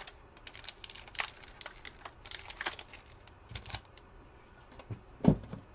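Trading cards clicking and rustling as they are flicked through by hand, a quick run of small sharp clicks over the first four seconds, then one louder knock about five seconds in.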